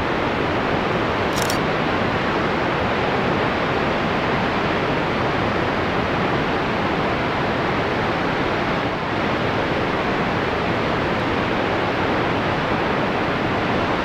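Steady rushing of Helmcken Falls, a tall waterfall plunging into its canyon, with a short high click about a second and a half in.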